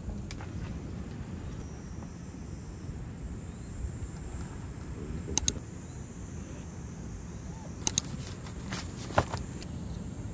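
Steady low outdoor background rumble, broken by a few sharp clicks and clinks of utensils and dishes on a wooden table: two together about halfway through, two more near 8 seconds, and one shortly after.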